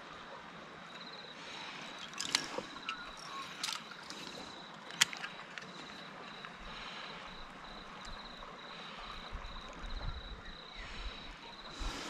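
An insect trilling steadily, a high thin pulsing note, over a quiet outdoor hush, with a few sharp clicks, the loudest about five seconds in.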